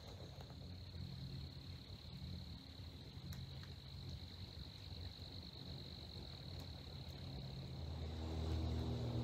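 Faint, steady high-pitched chorus of calling animals in a flooded swamp forest over a low rumble; music fades in near the end.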